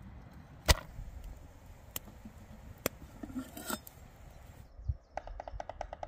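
Large knife striking a wooden board while chopping onion: a few separate sharp chops, the loudest about a second in. Near the end the chopping stops and music with a quick, even beat begins.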